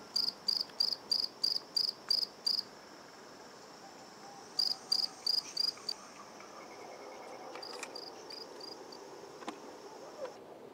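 A cricket chirping in evenly spaced high pulses, about three or four a second, in three runs with pauses between, the last run fainter. Two light knocks come near the end.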